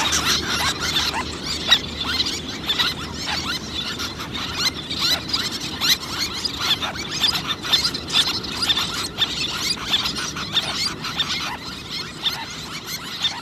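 Little terns calling in a colony: many short, sharp, high-pitched calls overlapping continuously, over a low steady rush.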